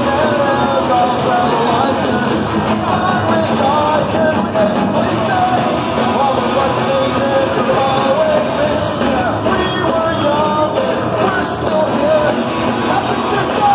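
Punk rock band playing live, with electric guitars, bass, drums and singing, heard from within the audience.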